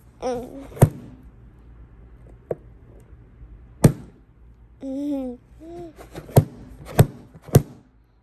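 A toddler making a few short babbling sounds, with six sharp taps scattered among them, the last three coming about half a second apart near the end; the taps are the loudest sounds.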